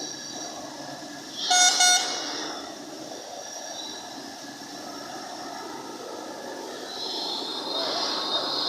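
A vehicle horn gives two short toots in quick succession about a second and a half in, over steady background noise.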